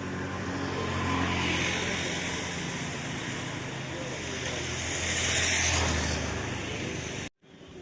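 Road traffic: motor vehicles passing close by on the highway, engines running, swelling loudest twice, about a second in and again near six seconds, before the sound cuts off abruptly near the end.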